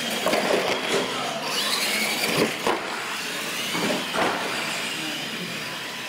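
Radio-controlled monster trucks racing: electric motors and gears whining, rising and falling in pitch with the throttle, with knocks and thumps as the trucks hit the ramps and land off the jumps, the loudest about two and a half seconds in.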